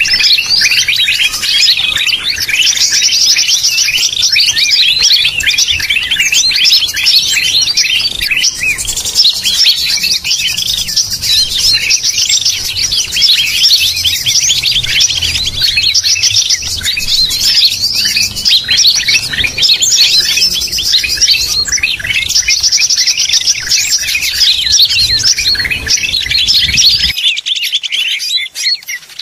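Bird-trapping lure recording (suara pikat) aimed at greater green leafbirds: a dense, unbroken chorus of many small songbirds chattering, chirping and breaking into fast buzzy trills, all overlapping.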